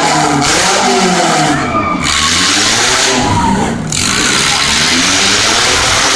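Several demolition derby car engines revving at once, their pitch swinging up and down repeatedly over a dense wash of noise.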